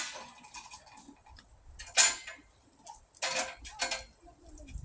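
A few sharp clacks: one at the very start, one about two seconds in, and a quicker cluster a second later.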